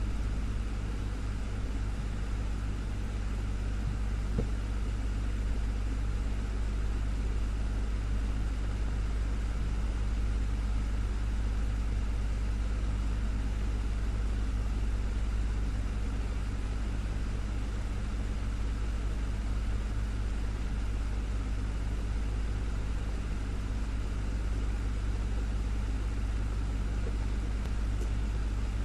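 Desktop fan running steadily: a constant whoosh of moving air over a low motor hum.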